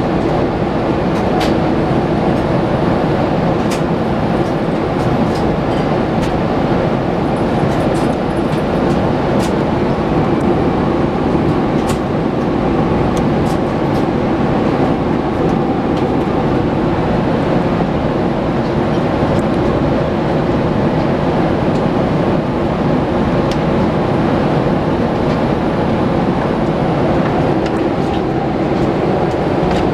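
Steady cabin noise of a Boeing 787-8 airliner in cruise: the even rush of airflow and engines heard from inside the cabin, with a faint hum in it.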